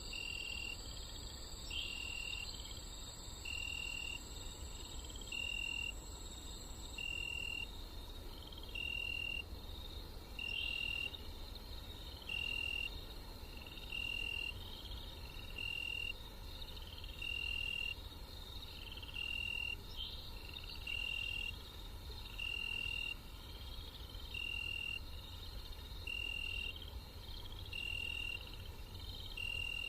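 Night-time forest ambience of insects: short high cricket-like chirps repeating evenly about every second and a half to two seconds, over a steady higher drone that stops about eight seconds in, with a low rumble underneath.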